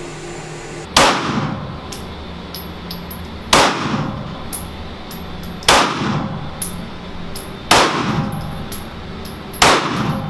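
Gen 4 Glock 19 9mm pistol fired in slow aimed fire: five single shots about two seconds apart. Each shot has a short reverberant tail from the indoor range.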